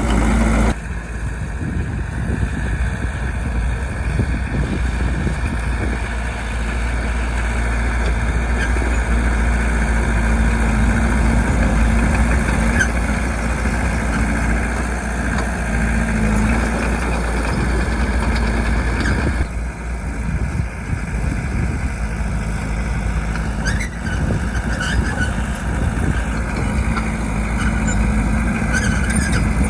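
Bulldozer's diesel engine running steadily as a loud low drone, shifting in character about two-thirds of the way through.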